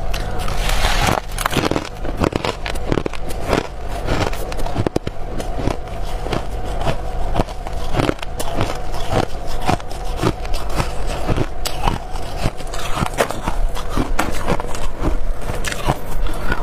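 Biting and chewing a chunk of hard freezer-frost ice: a dense, irregular run of crisp crunches and cracks.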